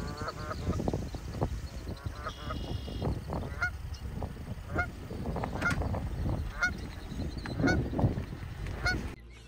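Canada goose calling in a series of short honks over a low rumble.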